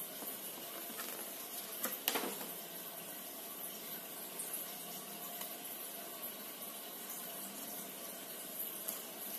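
Steady background hiss with brief paper handling about two seconds in: a short rustle and a few clicks as the paper instruction leaflet is handled.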